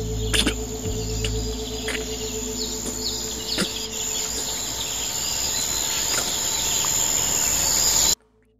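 Outdoor insect chorus of crickets chirring, with scattered short bird chirps over a low steady drone. It grows slowly louder and cuts off suddenly about eight seconds in.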